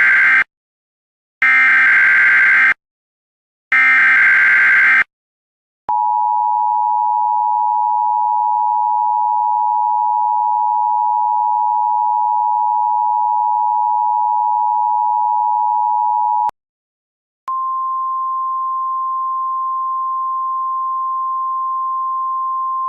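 Emergency Alert System tones. First come three short bursts of screeching digital SAME header data. Then the two-tone EAS attention signal holds steady for about ten seconds, and after a pause of about a second a single, slightly higher steady tone begins: the 1050 Hz weather-radio warning tone.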